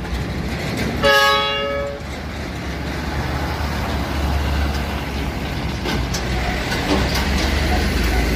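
A truck horn sounds once, briefly, about a second in, followed by the low steady rumble of Mercedes-Benz diesel trucks driving past close by.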